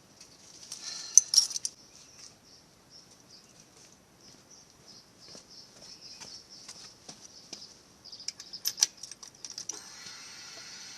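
Light clicks, taps and small metallic rattles from hands handling the battery hardware and tools while fitting a motorcycle battery. There is a louder cluster of clicks about a second in and another near the end, followed by a steady hiss lasting about two seconds that stops abruptly.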